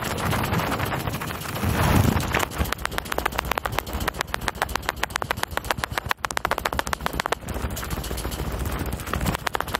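Mountain bike riding down a rough dirt and gravel track: a fast, irregular clatter of the bike rattling over the ground, with wind rumbling on the microphone, strongest about two seconds in.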